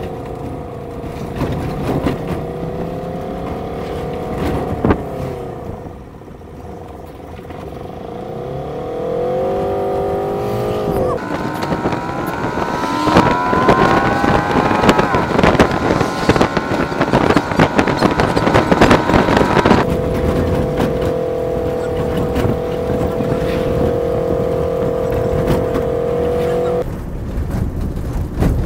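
Engine of a moving road vehicle heard from inside, over road and wind noise, with frequent knocks and rattles. Its whine rises in pitch as it speeds up, drops suddenly about twenty seconds in, then runs steady until it changes again near the end.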